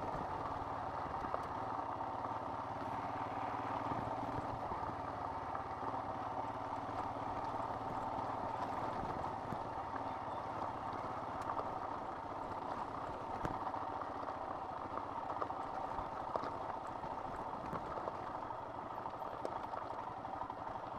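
Royal Enfield Himalayan's single-cylinder engine running at a steady pace while riding over a loose gravel track, with scattered clicks of stones and gravel under the tyres.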